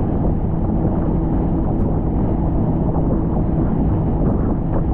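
Heavy wind noise buffeting the microphone over the steady drone of a boat engine, with water rushing past at speed.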